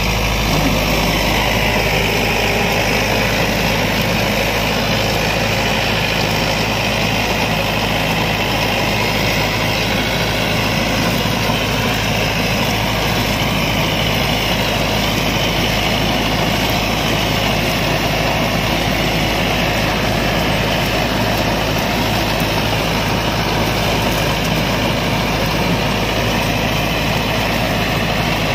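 Mahindra 575 DI tractor's four-cylinder diesel engine running steadily under load, driving a 7-foot rotavator whose spinning blades churn through the soil.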